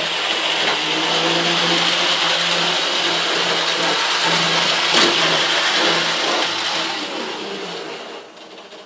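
Small electric motor of an OO gauge model locomotive whirring steadily as it runs round the track, dying away near the end as it is brought to a stop. This loco runs slower than it should.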